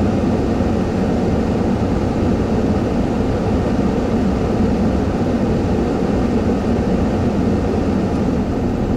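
Steady, even rumble of a vehicle engine idling, heard from inside the parked vehicle's cab.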